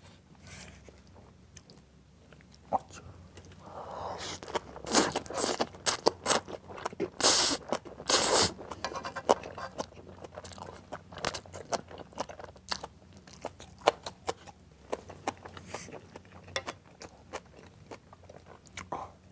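A person slurping up a mouthful of saucy instant noodles (buldak-jjapagetti) in several loud half-second pulls around the middle, then chewing wetly with many short smacking clicks.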